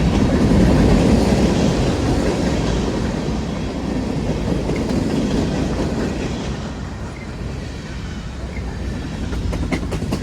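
Train passing on the tracks, its rumble slowly fading as it moves away, with wind buffeting the microphone.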